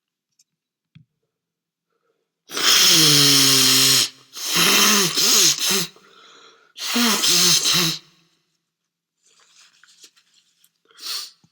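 A man's loud sneezing fit: a long drawn-out gasping build-up with slowly falling pitch, then two loud sneezes about two seconds apart. A short breath noise follows near the end.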